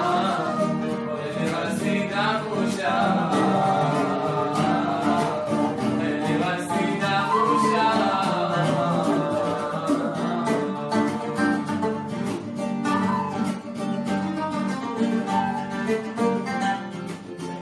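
Instrumental passage of an Arabic song, with plucked string instruments carrying the melody.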